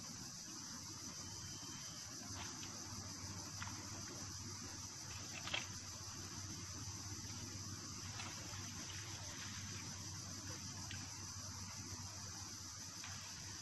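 Steady high-pitched chorus of insects, with a few faint scattered clicks and one sharper click about five and a half seconds in.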